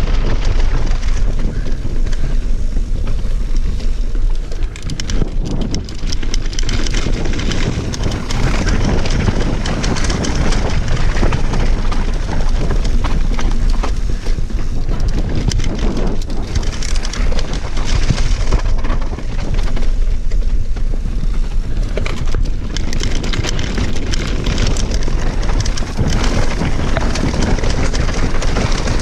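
Mountain bike riding down a rough cobbled rock trail: the tyres crunch and clatter over loose stones while the bike rattles, with wind rushing over the microphone.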